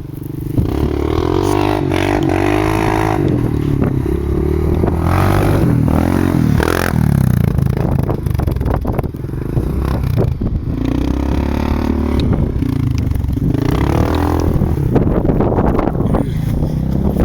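2003 Yamaha Grizzly 660 ATV's single-cylinder engine running through an HMF slip-on exhaust, its revs rising and falling over and over.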